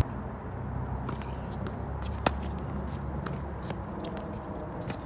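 Tennis ball struck by a racket during a rally: one sharp hit about two seconds in, with fainter knocks of bounces and shoes on the hard court around it, over a low steady outdoor rumble.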